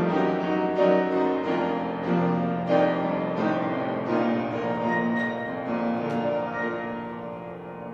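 Piano music, single notes and chords struck and left ringing, dying away near the end as the piece closes.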